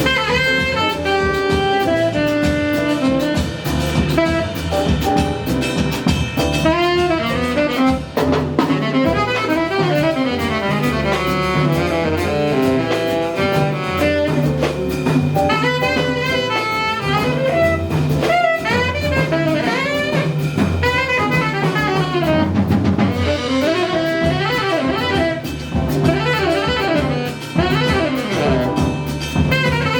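Live jazz band: a saxophone plays a fast, winding solo line with quick runs and bent notes, backed by double bass and drum kit.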